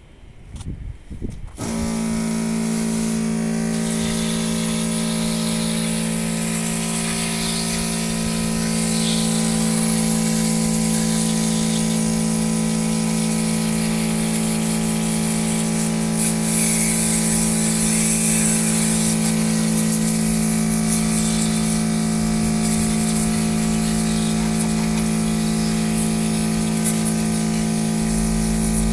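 Portable car-washer pump motor running steadily with a constant hum and a hiss above it, starting up after a few knocks about a second and a half in.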